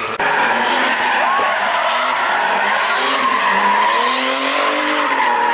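Drift cars sliding with tyres squealing over high-revving engines whose pitch swells up and down as the throttle is worked.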